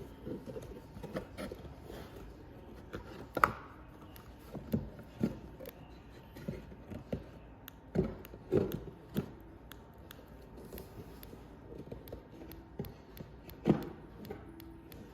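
Scattered small clicks and knocks from handling a quartz chronograph wristwatch as its crown is pulled out and worked. The sharpest knocks come about three seconds in and near the end.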